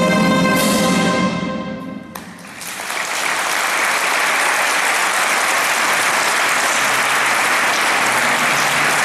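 Wind band's final chord, cut off about half a second in and dying away in the church's reverberation, followed by sustained audience applause that begins about two seconds in.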